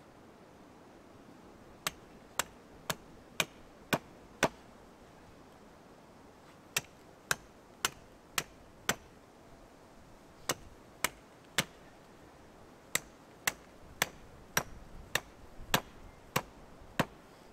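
Hatchet chopping a point onto a wooden stake: sharp blows of steel into wood, about two a second, in four runs with short pauses between.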